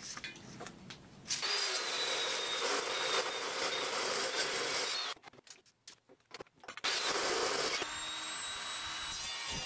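Metal-cutting chop saw running and cutting through half-inch mild steel plate: a steady, loud grinding hiss that stops about five seconds in. A saw runs again steadily after a gap of under two seconds.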